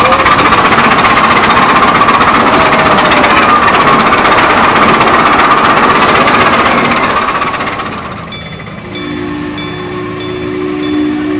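7.5-inch gauge live-steam 4-8-4 locomotive 401 running under steam, heard from the car behind it through a tunnel: a loud, continuous rush of exhaust and wheel noise. About eight seconds in this fades away to quieter background music with a steady ticking beat.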